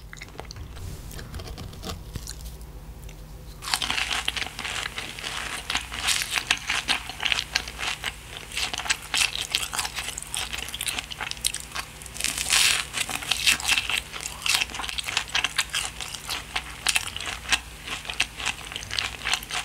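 Crunching and chewing of crispy fried food: a quieter stretch for the first few seconds, then dense, rapid crisp crunches from about four seconds in.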